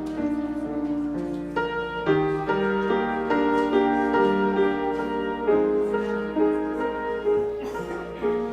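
Instrumental keyboard music, with held chords and a melody line moving in steady notes, and no singing.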